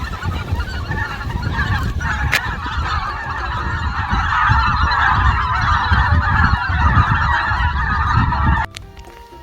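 A dense chorus of bird calls, swelling in about two seconds in over a low wind rumble on the microphone. It cuts off sharply near the end, leaving quiet background music.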